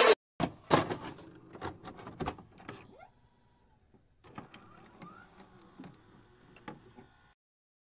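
Glitch-style electronic sound effect of a run of sharp clicks and short mechanical ticks, loud at first and fading, then a quieter run of ticks with a brief rising chirp, cutting off suddenly near the end.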